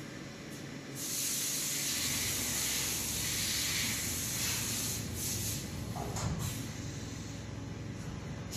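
Weijing GV1200 casting grinding machine running inside its enclosure: a loud, even hiss that swells about a second in and eases after about five seconds, over a steady low machine hum, with a brief clunk-like sound near six seconds.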